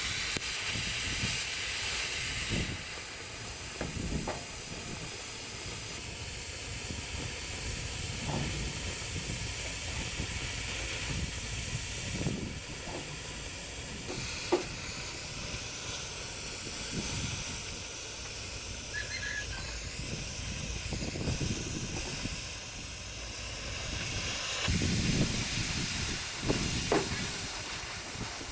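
Strong steady hiss that starts abruptly, with a few sharp metallic knocks and clinks scattered through it.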